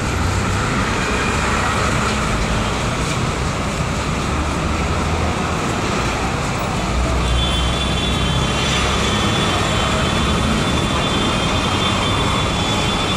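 Steady, loud background din of a crowded elevated train station platform, much like road traffic noise. A faint high, steady whine joins in about halfway through.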